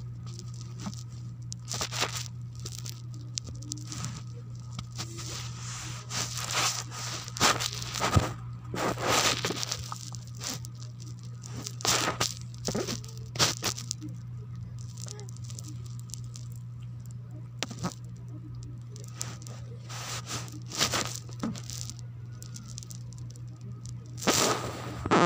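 Plastic snack bag crinkling and crackling in irregular bursts as it is handled, over a steady low hum.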